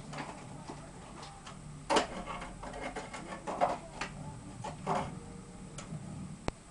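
Handling noise from a pair of AK-47 magazines and a magazine clamp being turned over and handled: scattered clicks and knocks, the loudest about two seconds in, with softer rubbing between.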